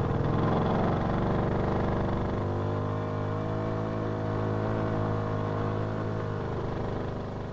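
An old vehicle engine running steadily just after starting up, its note shifting a little twice and easing off near the end.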